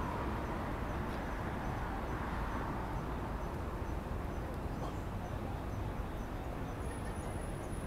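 Steady outdoor background noise, an even low rumble with no single event standing out. Faint high ticks repeat a few times a second throughout, and a thin high whine comes in near the end.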